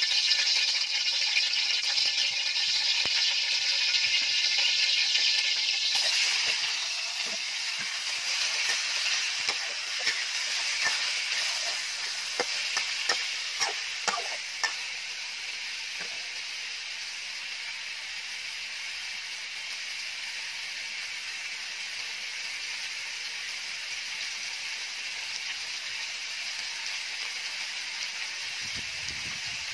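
Chicken pieces frying in hot oil in an aluminium wok: a steady sizzling hiss, louder for the first six seconds, with the metal spatula clinking and scraping against the wok between about nine and fifteen seconds in.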